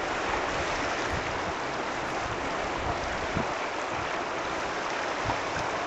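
Steady rush of moving water from the Severn Bore, the tidal bore wave surging up the River Severn.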